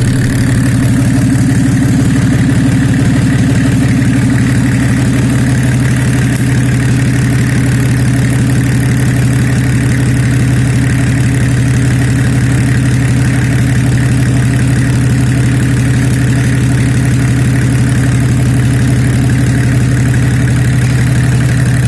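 Nissan RD28 2.8-litre inline-six diesel engine idling steadily.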